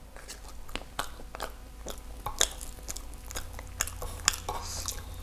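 A person chewing a mouthful of soft durian crepe, with many small, irregular mouth clicks. Near the end there are light scraping sounds as a fork and spoon work at the crepe on the plate.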